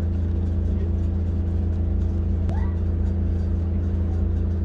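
Steady low hum of a running machine, made of several steady tones and holding an even level throughout. A faint short rising chirp comes about two and a half seconds in.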